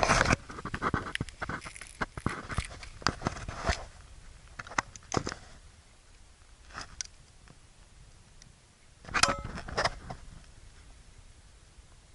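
Scattered crunching, scraping and clicking from someone moving over coarse granite sand among boulders, with handling noise from the camera. A dense run of it in the first four seconds, a few isolated sounds after that, another short cluster a little after nine seconds, then it falls quiet.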